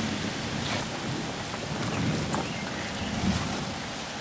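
Steady rain falling, with a low rumble of thunder from a passing thunderstorm.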